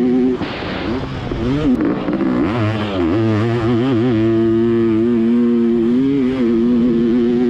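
Two-stroke motocross bike engine heard from the rider's helmet camera, revving up and down as it is ridden over the track. It holds a steady high rev for a few seconds in the middle, then the pitch rises and falls again near the end.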